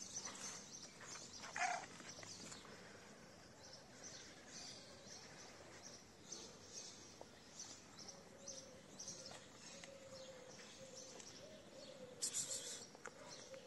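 Small birds chirping over and over in quiet outdoor surroundings. A brief louder call sounds just under two seconds in, and a louder burst of chirping comes about twelve seconds in.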